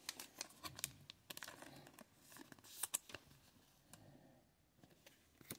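Faint clicks and rustles of a stack of trading cards being handled in the fingers, a card slid against the others to the back of the stack; the sharpest click comes about three seconds in.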